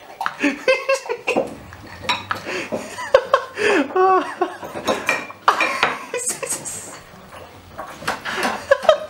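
Dishes and cutlery clinking, with a background of people's voices chattering.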